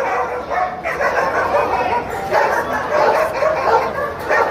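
Several caged puppies yapping at once, a continuous overlapping din of short high calls.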